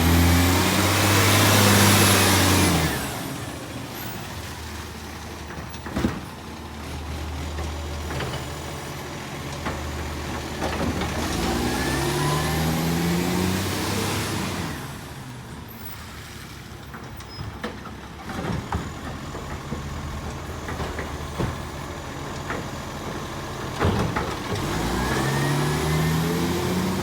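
Diesel garbage truck collecting recycling: the engine revs up and falls back three times, about every twelve seconds, each time with a loud hiss, and idles in between. Short knocks come between the rev-ups.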